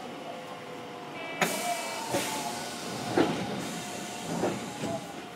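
Inside a Hiroden 3900-series tram stopped before departure: a sudden burst of compressed-air hiss about a second and a half in, followed by several knocks, over a steady electrical hum from the car's equipment. This is typical of the pneumatic doors closing just before the tram moves off.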